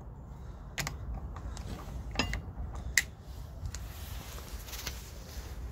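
Fingerprint lock and its door hardware being handled: a few sharp mechanical clicks and a creak, the loudest click about three seconds in, over a low steady rumble.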